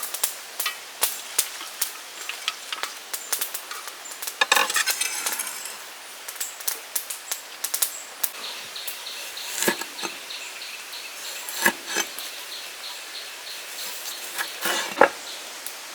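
Irregular clinks and knocks of cooking utensils and dishes being handled, with a few louder knocks. A faint steady high tone comes in about halfway through.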